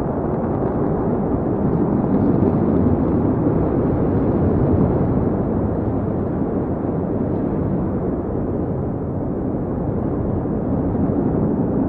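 Starhopper's single Raptor rocket engine firing: a steady, deep, muffled rumble that swells slightly a few seconds in.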